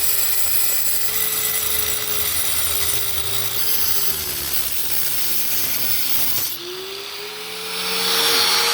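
Angle grinder cutting through a geode. The motor's whine sags in pitch as the disc bites into the stone, about four seconds in and again near six and a half, then climbs back. A harsh grinding hiss grows loudest near the end.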